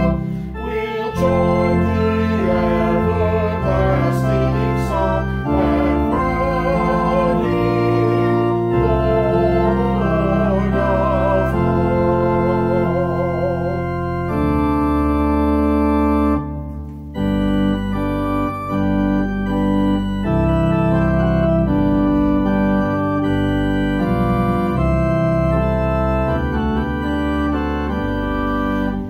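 Organ playing a hymn tune in full chords over held bass notes, with a wavering melody line on top. The music drops out briefly about two-thirds of the way through, then the chords resume.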